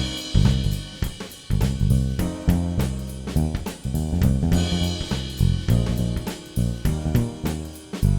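Instrumental background music with a steady drum-kit beat (snare, hi-hat, cymbal and bass drum) over a bass line.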